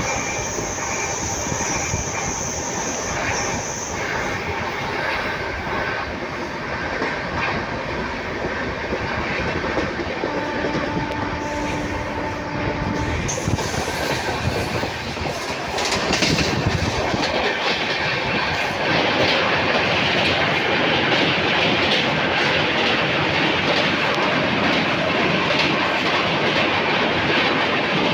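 Passenger train running at speed, heard from inside the coach by the window: a steady rumble of wheels on the rails. About sixteen seconds in it grows louder and harsher as the train runs out onto a bridge over a river.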